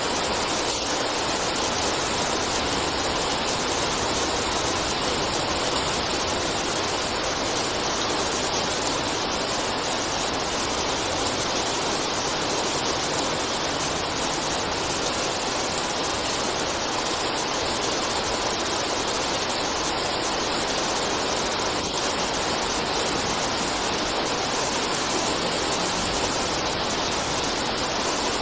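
Steady rain, a dense even hiss that keeps on without a break.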